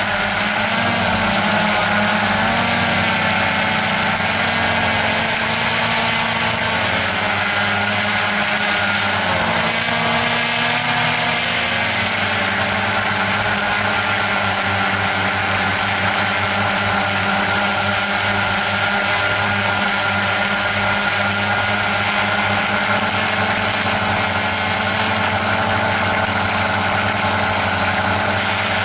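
Quadcopter drone's electric motors and propellers running steadily, with several tones that waver up and down in pitch for the first ten seconds or so as the motor speeds change, then hold steady.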